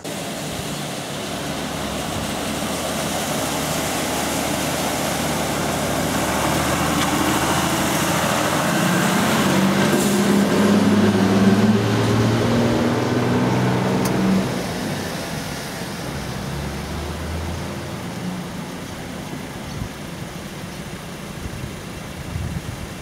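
A motor vehicle's engine running, growing steadily louder to a peak about eleven seconds in, then dropping away suddenly at about fourteen seconds into a lower, steady noise.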